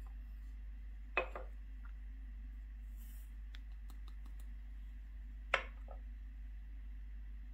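A metal powder pan being handled at a digital powder scale: a light clink about a second in, then a sharper click a little past the middle, with a few faint ticks between, over a steady low hum.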